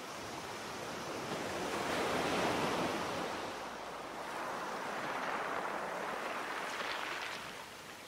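Sea waves washing in, two swells of surf: the first loudest about two and a half seconds in, the second building with a hissing wash about seven seconds in before fading.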